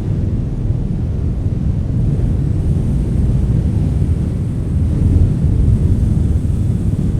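Wind blowing, a steady low rumble that swells slightly in gusts, with wind buffeting the microphone.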